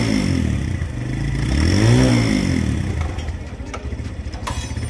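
Suzuki GS 150's single-cylinder four-stroke engine being blipped on the throttle: its pitch falls from one rev as the sound begins, rises and falls again about two seconds in, then settles to idle. Two short sharp clicks come near the end.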